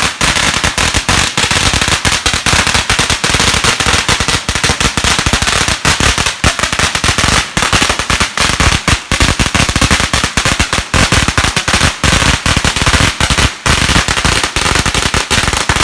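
Firecrackers going off in a loud, rapid, unbroken crackle of many small bangs.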